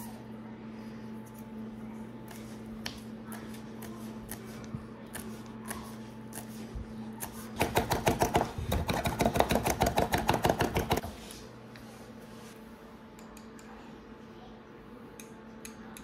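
Chef's knife chopping sage on a wooden cutting board: scattered single cuts at first, then about halfway through a rapid run of chopping strokes, about seven a second, lasting some three seconds and ending abruptly.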